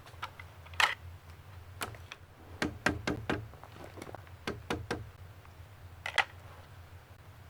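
Irregular light knocks and clicks, like things being handled or struck, with a quick run of about five in the middle.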